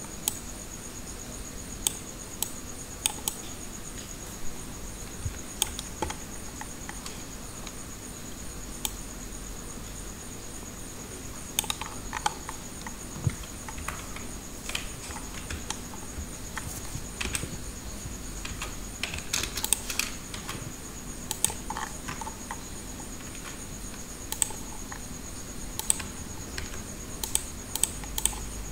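Scattered, irregular clicks of a computer keyboard and mouse being pressed, sometimes a few in quick succession, over a faint steady high-pitched whine.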